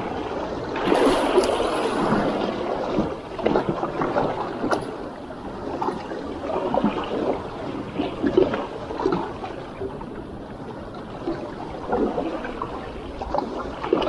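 Small sea waves washing and lapping against shoreline rocks, swelling and easing irregularly every second or two.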